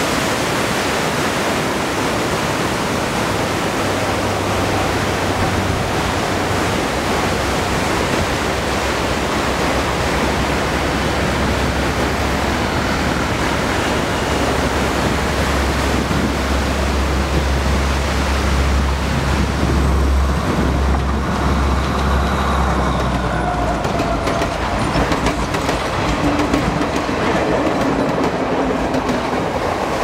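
Surf washing on the shore under a low, steady engine drone from a train on the seaside line. The drone comes in about four seconds in and dies away a little past the middle.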